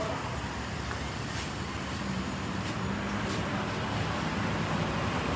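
Steady street traffic noise, with the low hum of a running vehicle engine.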